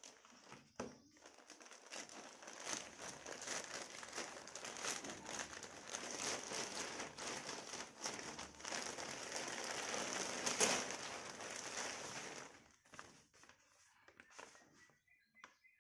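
Plastic courier mailer and clear polythene wrapping crinkling and crackling as hands cut and pull the bag open and draw out the packed backdrop cloth. The crackling is densest through the middle, with the sharpest crackle about ten and a half seconds in, and thins to a few soft rustles near the end.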